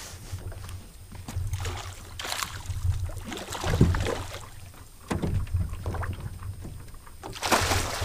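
A hooked fish splashing at the surface right beside the boat as it is worked toward a landing net: several short splashes, the biggest near the end.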